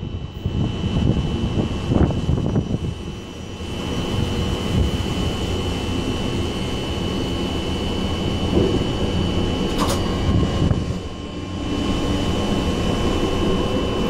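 Class 425 electric multiple unit heard from inside its driver's cab, running over the track with a steady rumble and a constant high-pitched tone. A couple of knocks sound in the first two seconds as it crosses the points, and a brief high ping comes about ten seconds in.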